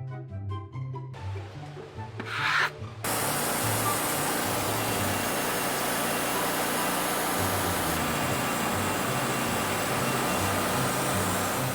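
A steady, even rasping noise sets in about three seconds in and holds at a constant level, over light background music.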